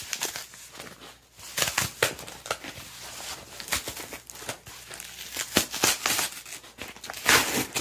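Shipping package being torn and pulled open by hand: irregular crinkling and tearing rustles, the loudest near the end.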